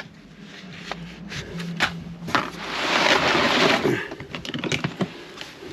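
Items being handled and a storage compartment being searched: scattered plastic clicks and knocks, with a louder rustling about two and a half to four seconds in.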